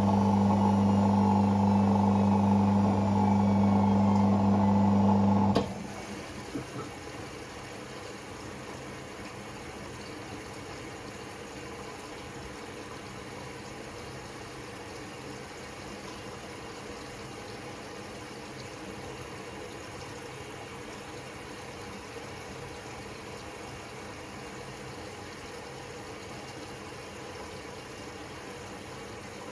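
Hoover washing machine's drain pump humming steadily, then cutting off abruptly about five seconds in. A click follows, then the steady hiss of water running in through the inlet valve to fill the drum.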